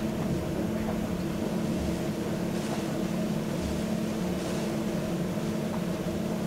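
Steady droning sound-design soundscape: a low rumbling hum with several held tones, like a ship's engine drone, with faint hissing swells about two and a half and four and a half seconds in.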